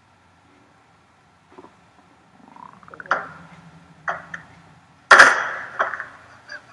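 Film sound effects of an attack on a car: a tense near-quiet with a faint low drone, a short rising whine, two sharp knocks, then a loud sudden crash about five seconds in and a smaller hit just after it.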